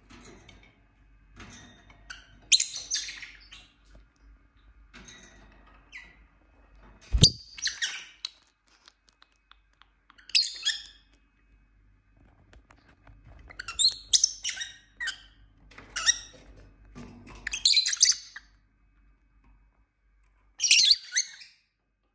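Pet lovebirds giving short bursts of sharp, high-pitched chirps and squawks, scattered through with pauses between them. A single knock or thump sounds about seven seconds in.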